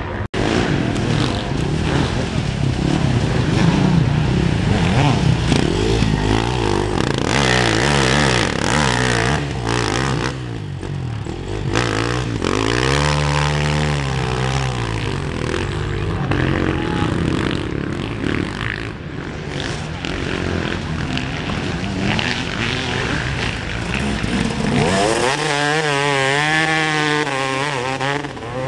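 Off-road motorcycle engines running at a race, with several engines overlapping. About halfway through, and again near the end, one engine comes close and its pitch revs up and down.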